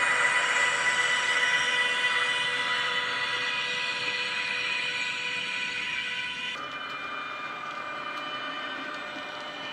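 Factory-fitted DCC sound in a Roco model ÖBB class 1116 Taurus electric locomotive, playing its electric traction whine through the small onboard speaker as the model runs. Several steady high tones fade gently as it moves away. About two-thirds of the way through, they switch abruptly to a different set of tones.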